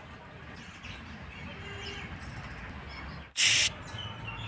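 Outdoor background with faint bird chirps, broken about three and a half seconds in by a short, loud burst of hiss-like noise lasting a third of a second.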